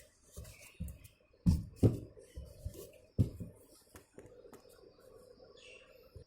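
Handling noises: a string of knocks and clicks of objects being moved about, with the loudest knocks about one and a half to two seconds in and again just after three seconds.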